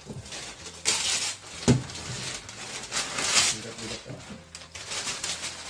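Gift wrapping paper being torn and crumpled off a cardboard box in several rustling bursts, with a single knock of the box about two seconds in.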